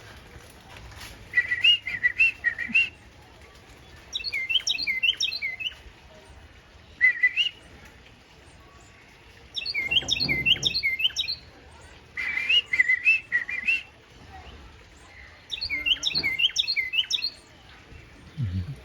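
Birds chirping in short, repeated bouts of quick, sharp notes, a burst every second or two.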